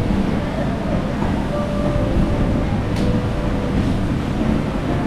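Wind buffeting the microphone on a blustery day, a steady low rumbling noise, with a faint click about three seconds in.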